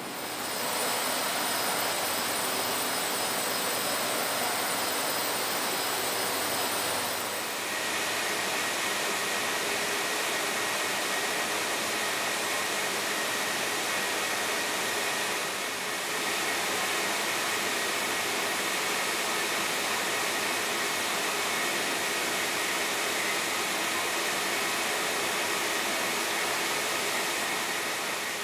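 Steady dense whirring din of textile spinning and winding machines running. A thin high whine sits over it for the first seven seconds or so, after which the noise changes and a lower steady whine holds to the end.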